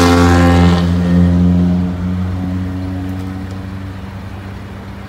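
A motor vehicle's engine, loudest in the first second and then fading steadily as it moves away.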